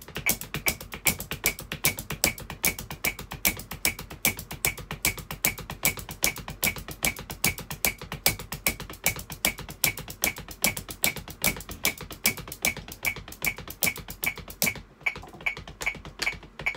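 Red rod-style drumsticks played in a steady fast run of alternating strokes on a Gretsch rubber practice pad, with regular louder accents, while a foot taps the floor in time with the right hand. About fifteen seconds in the stick strokes stop and softer taps carry on.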